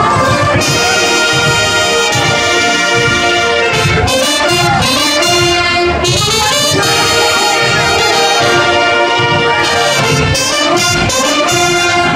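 Marching band brass playing loud, full held chords in a series of phrases.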